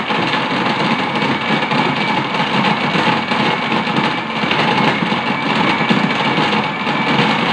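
Countertop electric blender running steadily at full speed, blending bananas, dates and milk into a shake: an even motor whir with a faint high whine over it.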